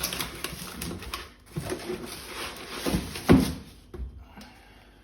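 Packaging and appliance parts being handled during unboxing: rustling with a few short knocks, the loudest about three seconds in.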